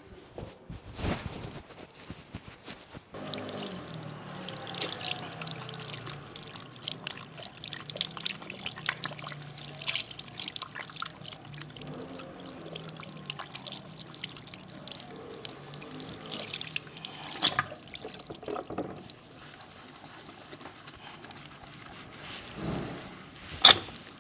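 Water pouring and splashing during a soapy hair and face wash at a barber's basin, with music playing; a single sharp click near the end.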